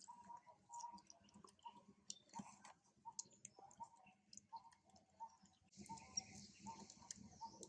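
Baby monkey chewing a piece of mango: faint wet clicks and smacks of its mouth. About six seconds in, a steady hiss comes in under the chewing.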